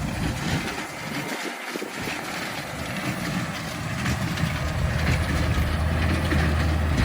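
Tractor engine running steadily with a hay baler working behind it. The low engine hum grows stronger and louder over the second half.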